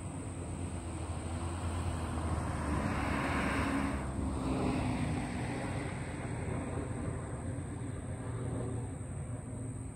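A car passes by, building to its loudest about three to four seconds in and then fading, over a steady low background hum.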